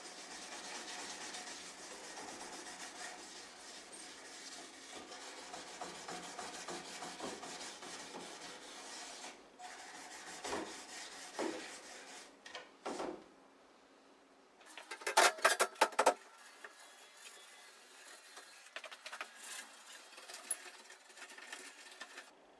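Hands-on repair work on a washing machine's metal frame: a steady rubbing for about nine seconds, then a few separate knocks and a short, loud rattling clatter about fifteen seconds in.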